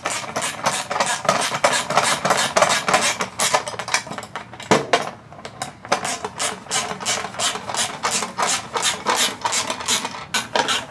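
Screwdriver and wrench tightening license-plate screws into nylon lock nuts: a rapid run of clicking, scraping strokes, about five a second, as the screws turn against the nylon inserts. There is a short lull about four seconds in, ended by one sharp click.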